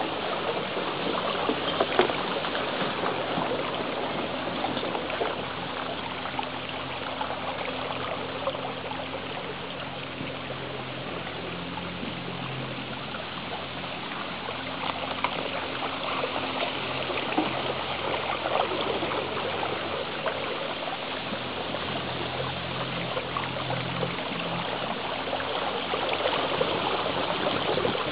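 Pedal boat's paddle wheels churning through calm water, a steady trickling, splashing wash.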